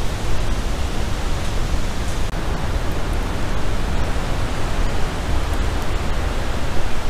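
Steady rushing noise with a heavy low rumble and no distinct events: wind buffeting the microphone.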